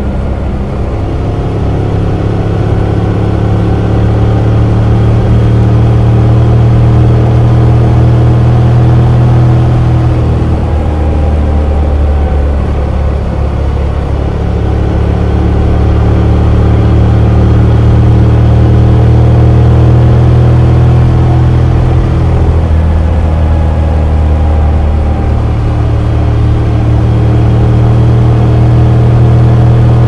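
Motorcycle engine and exhaust with an aftermarket Akrapovic header on the stock muffler, heard while riding: a steady, loud engine note that climbs slowly, then drops away about a third of the way in and again about three quarters of the way in before climbing once more.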